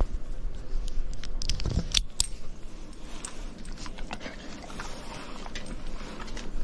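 Light jingling and irregular clicks of a dog's collar tags and leash hardware on a walk, with a louder cluster of clicks about two seconds in.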